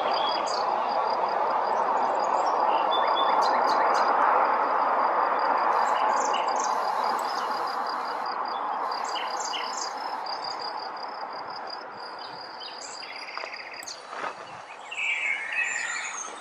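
Rushing road noise of a passing vehicle, swelling over the first few seconds and then slowly fading away. Birds chirp over it, with a steady high-pitched pulsing trill throughout and a few louder bird calls near the end.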